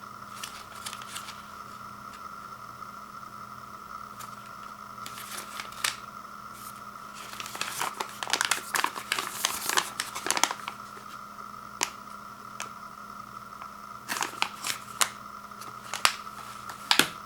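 Cardboard box and packaging of microwave popcorn mini bags being handled: scattered clicks and bursts of crinkling, thickest in the middle and again near the end, over a steady faint high whine and hum.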